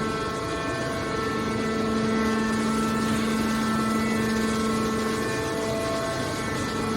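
Hydraulic steel baler's power unit running steadily: an even mechanical hum with a pitched drone and higher overtones, holding the same pitch throughout.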